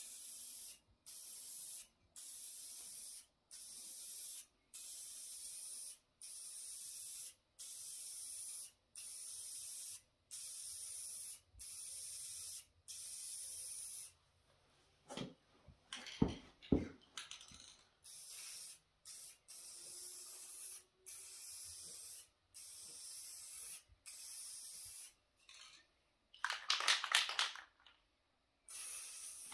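Aerosol spray-paint can spraying a heavier second coat onto a truck sun visor, in a steady run of high hissing bursts about a second long with short breaks between. About halfway through there is a short clatter of knocks, and near the end a brief rattle before the spraying goes on.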